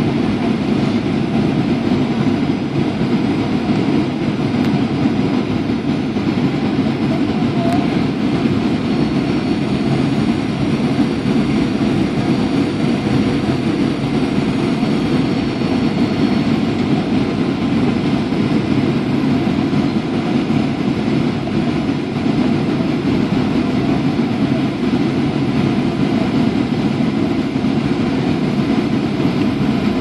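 Boeing 737-800 cabin noise heard at a window seat: the CFM56 turbofan engines and airflow make a steady, even rush during the descent for landing.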